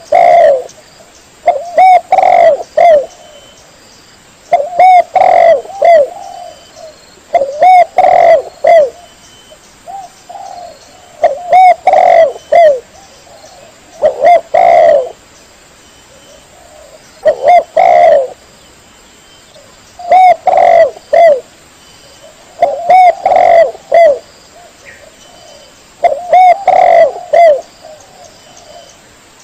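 Spotted dove (tekukur) cooing: a short phrase of several coos, repeated roughly every two to three seconds.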